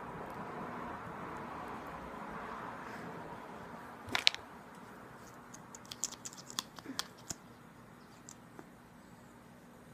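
Small plastic clicks and taps from handling a lip gloss tube and its applicator wand close to the microphone. A sharp cluster of clicks comes about four seconds in, then a quick run of lighter ticks over the next two seconds.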